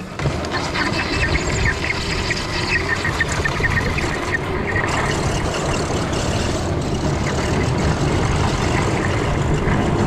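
Electric snowmobile pulling away and riding over snow: a steady rush of wind and track noise that starts suddenly at the go.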